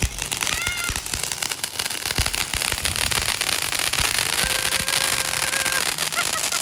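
Firecrackers and fireworks going off in a dense, continuous run of rapid crackling pops.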